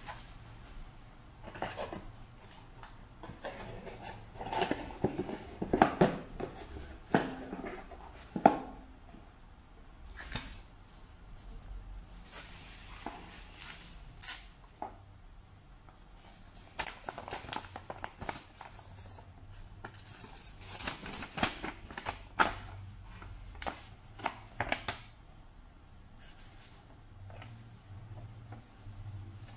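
Bubble wrap and cardboard packaging crinkling and rustling as hands handle them, in irregular crackles and taps that are loudest a few seconds in. A paper sheet rustles near the end.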